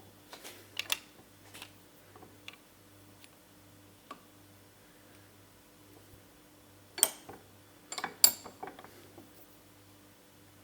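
A few sharp clicks and knocks of hand tools and small parts being handled, scattered and faint at first, with the loudest couple about seven and eight seconds in, over a faint steady electrical hum.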